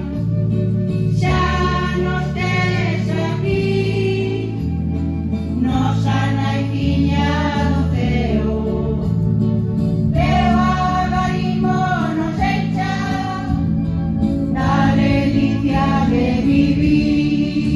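Entrance hymn of a Mass sung by a choir, with held low accompanying notes.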